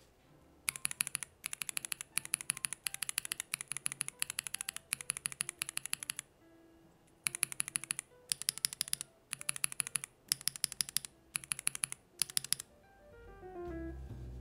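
Tactile mechanical keyboard switches (Polar Panda and Holy Panda types under GMK keycaps) being tapped rapidly in short runs of clicks, in two stretches with a pause of about a second midway. Piano music swells up near the end.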